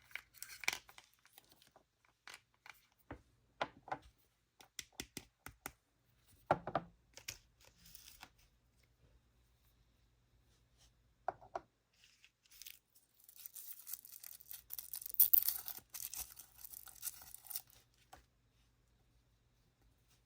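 Toy packaging being handled and opened by hand: scattered crinkles and clicks, then a longer tearing rustle in the second half, loudest about three-quarters of the way through.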